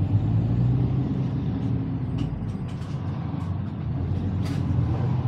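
Motor vehicle engine running steadily with a low hum, with a few short clicks and knocks over it.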